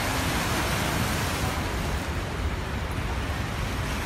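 Churning floodwater of a river in flood, a steady rushing noise, recorded on a phone.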